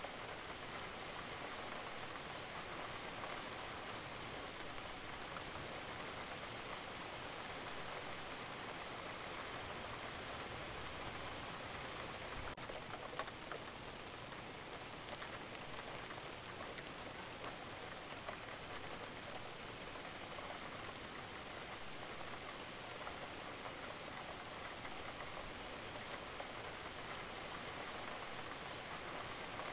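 Steady rain recording, an even hiss of falling rain with many small drop hits and one sharper tick about 13 seconds in. It serves as the audible cover track of a subliminal, with affirmations laid beneath it.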